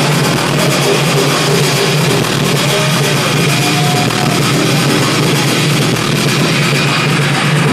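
Loud techno music playing steadily over a venue sound system, recorded close up with little deep bass.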